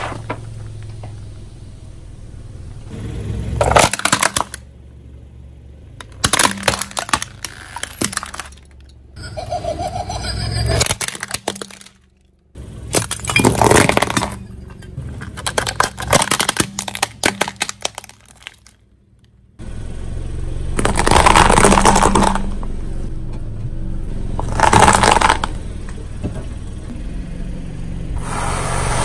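A car tyre slowly rolling over and crushing a series of objects, heard as repeated bursts of cracking, crunching and breaking. Short pauses separate the bursts, and a longer, louder stretch of crunching comes about two-thirds of the way in.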